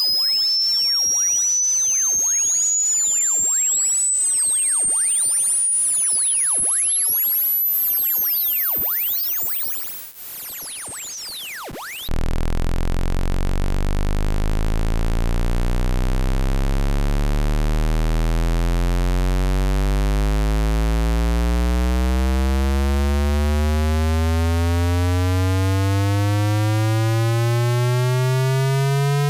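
Synthesized electronic test tones. A piercing high-pitched pure tone glides steadily upward until it climbs out of hearing and fades. About 12 seconds in, a loud, buzzy low tone cuts in and slowly rises in pitch.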